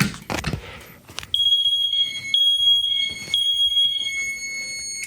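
Fire alarm piezo sounder on a local-alarm device, sounding a high steady tone in three long beeps of about a second each, starting about a second and a half in. A fainter tone holds on until it cuts off near the end. A few knocks come before it.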